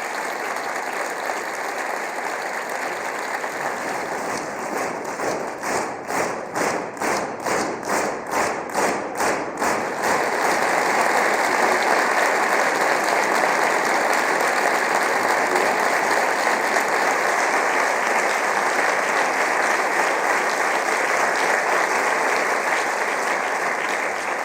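Large audience applauding. About five seconds in, the clapping falls into a rhythmic unison beat, a little over two claps a second. Around ten seconds in it breaks into louder, dense applause that holds.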